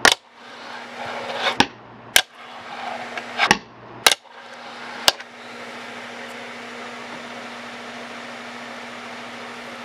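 Wooden fingerboard with Blackriver trucks and Joycult wheels snapped and rolled on a wooden tabletop: about six sharp clacks of the deck and trucks hitting the wood in the first five seconds, with wheels rolling between them. After that only a steady low hum remains.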